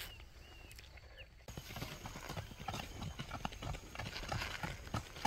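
Hoofbeats of horses clip-clopping along a road: a ridden horse leading two Mangalarga Marchador mares. The hoofbeats start abruptly about a second and a half in and grow louder as the horses come closer.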